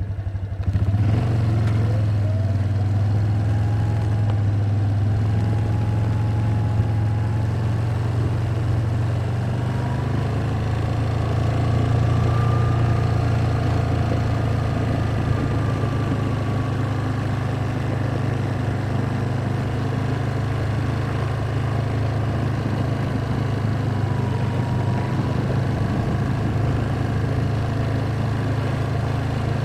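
ATV engine running steadily while riding, stepping up in level about a second in, with a faint whine above it that slowly rises and falls in pitch.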